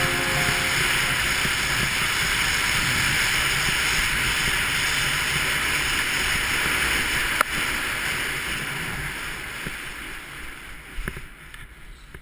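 Steady rushing hiss of wind and skis sliding over snow, picked up by a helmet-mounted action camera while skiing downhill. There is a sharp knock about halfway through and a smaller one later, and the noise fades out toward the end.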